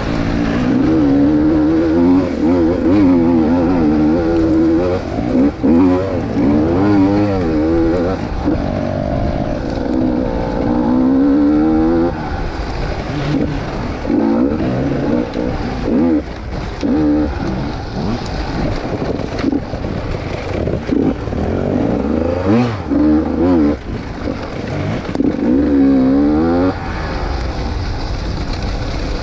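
Two-stroke enduro dirt bike engine revving up and down over and over while being ridden off-road, its pitch rising and falling with the throttle.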